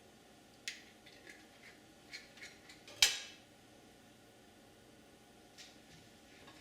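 Light clinks and taps of metal kitchenware against a wok, a few scattered ticks with one sharper, briefly ringing clink about three seconds in.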